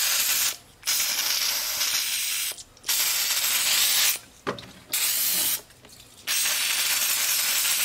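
Aerosol can of brake cleaner spraying in five bursts, a loud hiss with short breaks between them.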